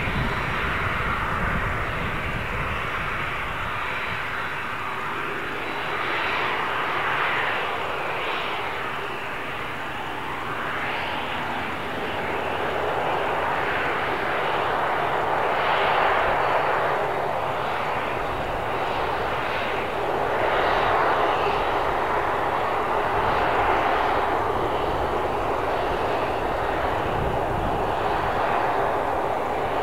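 Boeing 737-300's CFM56-3 jet engines running at low power as the airliner taxis, a steady whooshing whine that swells and eases gently.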